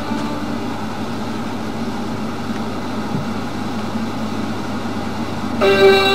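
A steady noise with no clear pitch and no changes. Near the end, music with long held tones comes in over it.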